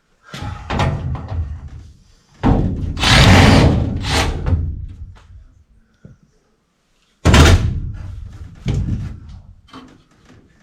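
Loud bangs and rattling of equipment being handled during the coil install, in three or four bouts that each trail off over a second or two; the bout about two and a half seconds in is the loudest and longest.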